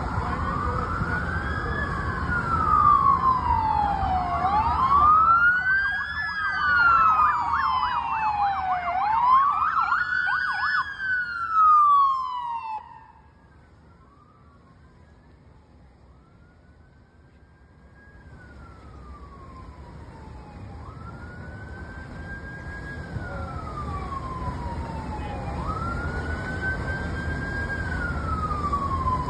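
Emergency vehicle sirens wailing, rising and falling in pitch every few seconds, with two sirens overlapping at first over low traffic rumble. About thirteen seconds in the sound drops away sharply, then a single wailing siren comes back faint and grows steadily louder as it approaches.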